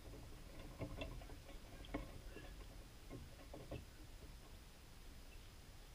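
Faint, irregular taps and knocks from play on an outdoor hard tennis court, a few short clicks spread over the first four seconds with a low rumble beneath.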